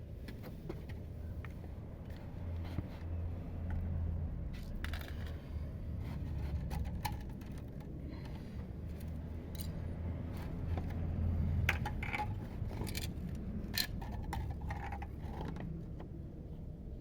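Hands handling small hard parts of a trap being built: scattered clicks and light metallic-sounding rattles, more frequent in the second half, over a steady low rumble.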